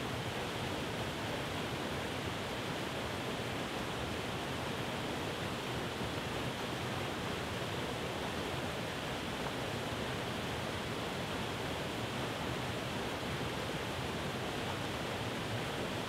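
Waterfall cascading down rock ledges: a steady, unbroken rush of falling water.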